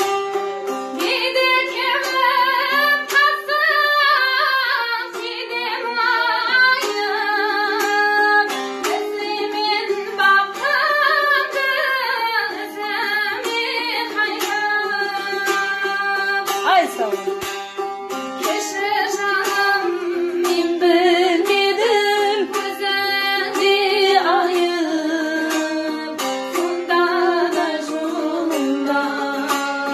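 A woman singing a Karakalpak song to a dutar, the two-stringed long-necked lute, its plucked strings giving a steady accompaniment under the wavering vocal melody.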